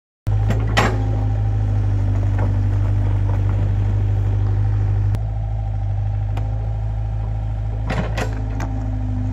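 Doosan mini excavator's diesel engine running steadily as it digs soil, with a few sharp clanks from the bucket and arm about a second in and again around eight seconds in.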